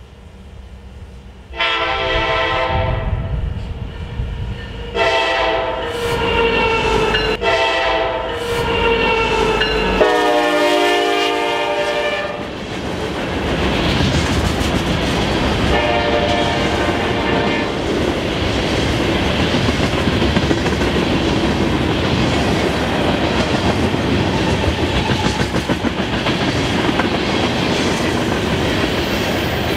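A diesel freight locomotive's air horn sounds a multi-note chord in four blasts, long, long, short, long: the standard warning for a grade crossing. After that the freight cars roll past with steady wheel and rail noise, and the horn sounds once more briefly.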